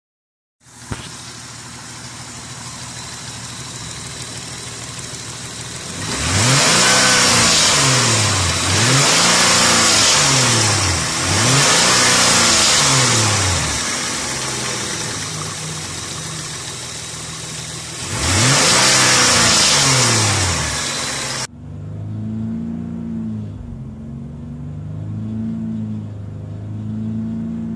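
2002 Hyundai Coupe 2.7 V6 engine idling, then revved up and let fall back several times, with a strange noise reported from the left side of the engine between 3000 and 4000 rpm. A loud hiss swells with each rev and stops suddenly late on, leaving the engine idling unevenly.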